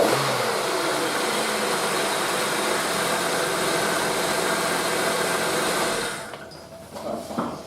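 Holden Commodore engine breathing through a K&N high-flow air filter, running steadily with a brief blip right at the start. The sound falls away about six seconds in, leaving a few faint knocks.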